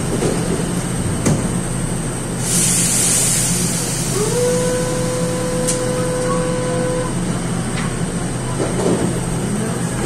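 Door-closing warning tone of an NC-82 metro train, distorted: one steady tone lasting about three seconds that slides up briefly as it starts. About a second before it comes a short burst of hiss, over the steady hum of the standing train.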